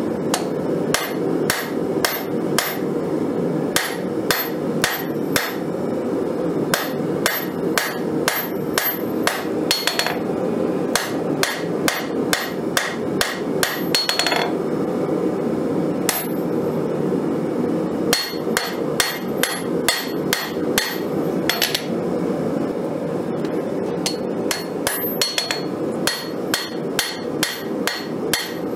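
Cross-peen hammer forging a glowing-hot file blade on a Cavalry anvil, with a ringing blow about three times a second in runs broken by short pauses. A steady low rush runs underneath.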